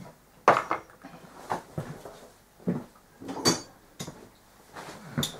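Metal hand tools being handled at a workbench: a run of separate sharp clinks and clanks, loudest about half a second in and again around three and a half seconds.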